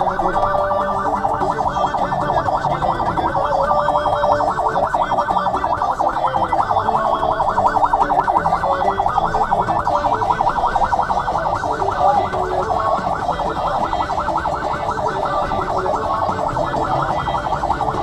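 Electronic emergency-vehicle siren warbling rapidly and evenly, with low traffic rumble underneath.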